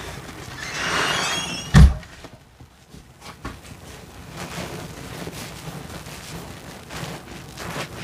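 Soapy sponge squeezed and squished in a sink of sudsy water: wet squelching with crackling foam, then a loud wet thump about two seconds in. After it, quieter squishing and fizzing of the suds as the sponges are worked.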